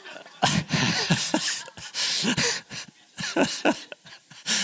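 People laughing in several short, uneven bursts, breathy and chuckling, in reaction to a joke.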